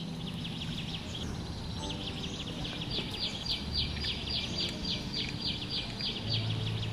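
A fast, even series of high chirps, about five a second, growing clearer and louder partway through and fading near the end, over a steady outdoor hiss.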